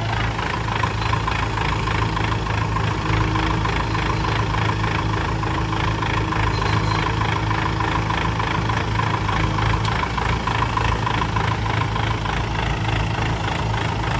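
Diesel engine of a JCB 3DX backhoe loader running steadily with an even firing rhythm, at a constant speed throughout.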